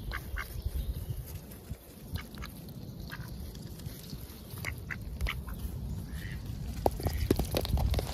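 Mallards calling with short, scattered quacks while feeding close by. Near the end comes a quick run of sharp clicks as bills peck close to the microphone.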